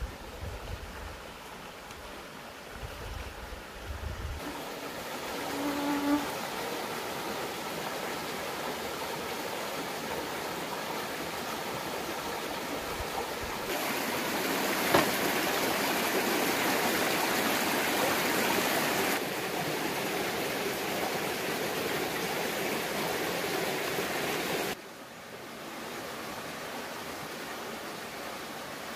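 Shallow stream water running over rocks, a steady rushing hiss whose loudness jumps up or down abruptly several times. A few low thumps in the first few seconds.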